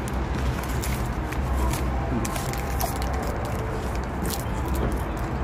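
Steady outdoor background noise with a low hum and faint distant voices, with scattered sharp crinkles and clicks from a paper wrapper handled close to the microphone.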